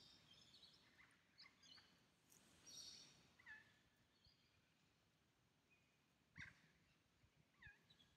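Faint outdoor near-quiet with scattered birdsong: high chirps in the first few seconds and short curved whistled calls a little past halfway and near the end. A single sharp knock about six seconds in.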